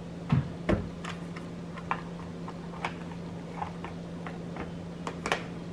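Plastic bento lunch box handled on a cutting board: a couple of knocks as it is set down in the first second, light taps and clicks as the lid is fitted, and a few sharp clicks near the end as the lid snaps shut. A steady low hum sits underneath.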